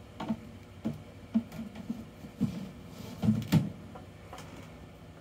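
A series of about eight soft, irregular knocks and bumps, the loudest a cluster a little past three seconds in.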